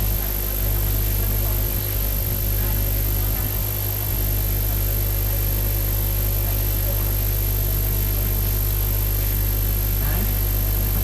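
Steady electrical hum with hiss from the microphone and sound system, and no speech. A faint short rising sound comes near the end.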